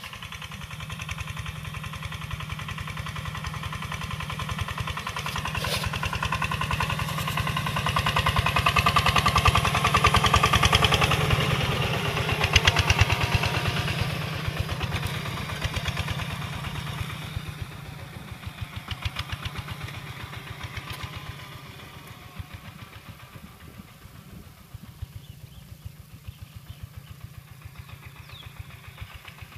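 Two-wheel walking tractor's diesel engine running under load as it pulls a disc plough through dry soil, with a fast even chugging. It grows louder as the tractor comes close, is loudest as it passes, and fades as it moves away.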